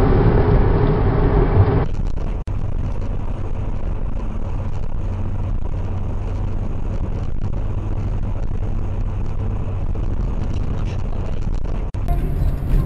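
Dashcam recording from inside a moving car: a steady low engine and road rumble. In the first two seconds a fuller, louder road noise from a different recording cuts off and gives way to the rumble.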